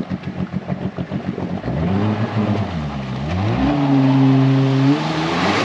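Jet ski engine pulsing at low revs, then revved up about two seconds in. The revs dip briefly, climb and hold high, then drop sharply near the end as it strains to tow a stranded cabin cruiser through shallow, muddy water, its jet throwing up spray.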